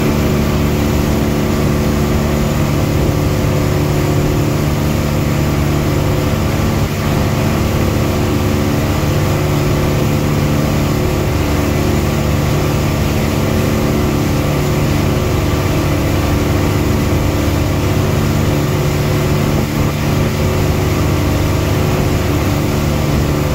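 Passenger boat's engine running at a steady pitch, heard on board during the crossing, over a constant rushing noise.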